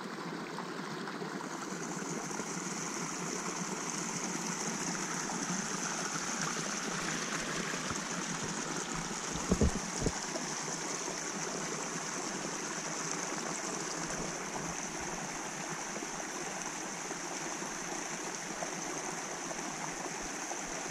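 Small cascade of water running down a narrow granite channel, a steady rushing sound. Two brief knocks come a little before halfway.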